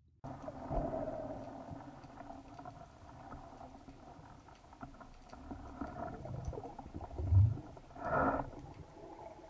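Muffled underwater noise heard through an action camera's waterproof housing as a spearfisher swims, cutting in suddenly just after the start. A deep thump about seven seconds in is the loudest sound, followed at once by a short noisy burst.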